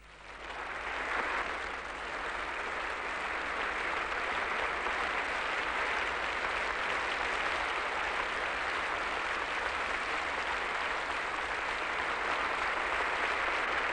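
An audience applauding, building up over the first second or two and then holding steady.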